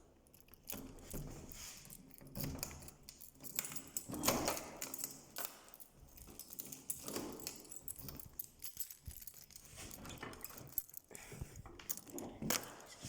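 A bunch of keys jangling and clicking in irregular bursts.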